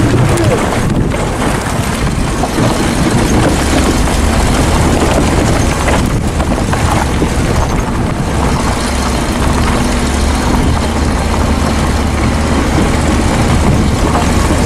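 Vehicle driving along a rough dirt track: a steady low engine hum under loud, even road noise.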